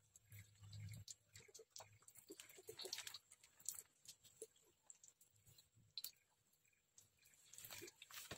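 Near silence: room tone with faint scattered clicks and ticks, and a slight rustle near the end as the phone is handled.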